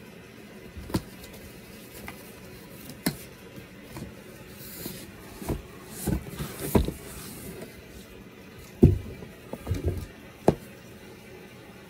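Cardboard shipping box being handled and opened: scattered taps and scrapes on the cardboard, a rustling of cardboard a little before the middle, then several dull thumps near the end as the boxes are tipped and set down on the carpet.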